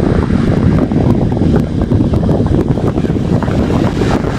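Corsair SP140 140mm computer case fan running at 60% speed, a steady loud rush of air with a fluttering buffet as its airflow hits the microphone.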